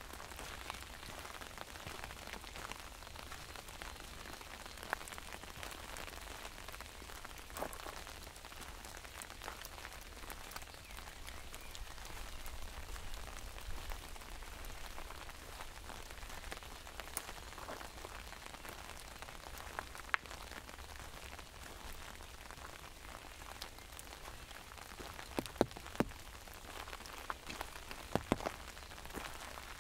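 Rain falling on an umbrella overhead: a steady hiss of light rain with scattered sharper drop taps, several louder ones near the end.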